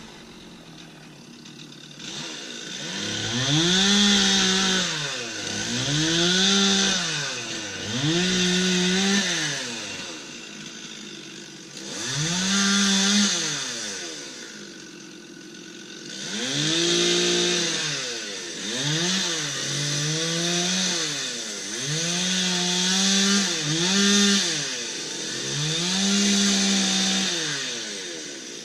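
Two-stroke chainsaw revved up and down about ten times, its pitch rising to full throttle and falling back every two to three seconds.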